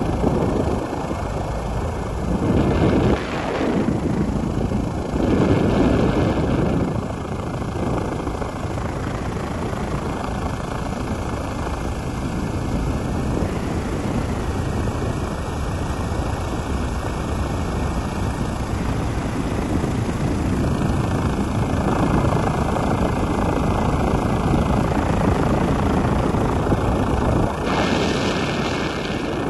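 Steady helicopter engine and rotor noise heard from on board, swelling louder a few times.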